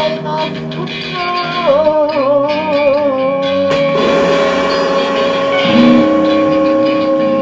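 Experimental improvised music from electric guitars and turntable electronics, holding droning tones. A wavering, gliding tone settles into a steady held note about three seconds in, and a lower held note joins about six seconds in.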